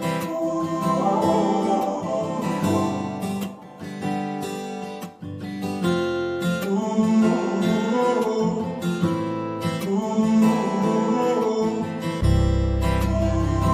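Instrumental song intro: a strummed acoustic guitar playing chords, with a low bass line coming in near the end.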